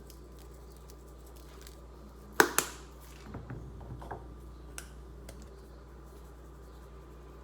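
A sharp double knock about two and a half seconds in, then a few lighter clicks and taps over the next few seconds, from seasoning containers being handled on a kitchen counter.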